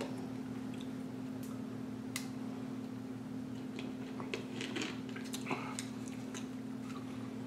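Faint clicks and crackles of a plastic bottle's screw cap being twisted open, a sharp click about two seconds in and several smaller ones later, over a steady low hum.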